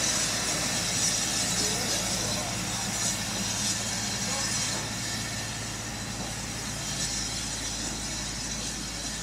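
Steam hissing from the Ivatt Class 2MT 2-6-2T tank locomotive 41241, a steady hiss with a low hum under it that slowly fades.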